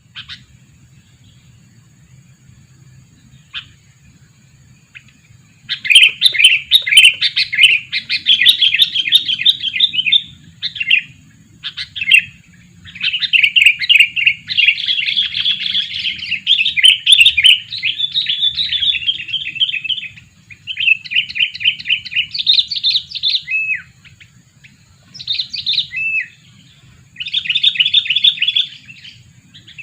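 Sooty-headed bulbul (kutilang) decoy bird calling: loud, rapid chattering phrases starting about six seconds in, coming in bursts of a few seconds with short pauses, and a few falling notes near the end.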